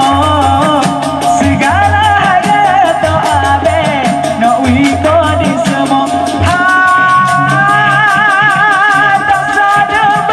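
A man singing live into a microphone over percussion, holding long notes with a wide vibrato in the second half. Under the voice runs a steady drum beat with quick, regular high percussive ticks.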